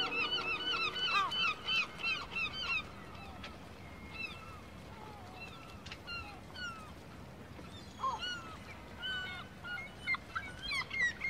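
Birds calling in fast runs of short, arched notes, several a second. The calls thin to scattered single notes about three seconds in and pick up into a quick run again near the end.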